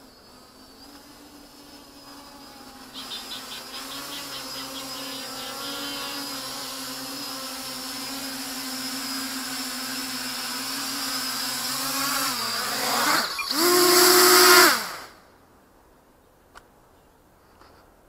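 Quadcopter's brushless motors and propellers buzzing steadily, growing louder as it hovers nearer, then a brief loud throttle-up before the motors spool down in pitch and stop as it lands.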